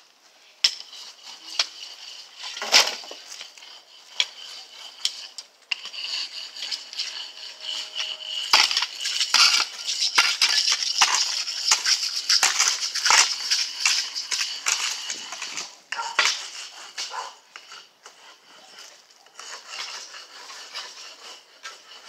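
Metal shovel scraping and crunching through stony soil, a rapid run of scrapes and knocks that is busiest from about six to sixteen seconds in.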